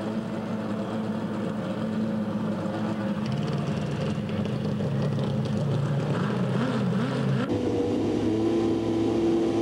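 Drag-racing motorcycle engines: a steady engine drone, wavering briefly near the end, then about seven and a half seconds in an abrupt switch to a sport bike's engine held at steady, higher revs while staged at the starting line.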